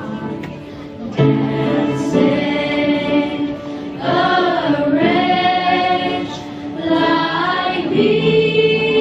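A junior choir singing a hymn in harmony, holding long notes that change every second or so, one voice wavering around the middle.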